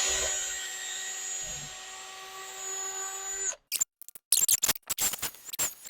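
Electric drill running steadily as it drills through an old rear suspension bushing, then cutting off suddenly about three and a half seconds in. Short irregular clicks and scrapes follow.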